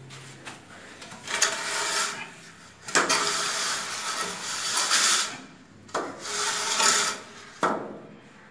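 A straightedge or trowel scraping across a sand-and-cement mortar bed laid for floor tiles, in three long scraping strokes each one to two seconds long. A sharp knock comes near the end.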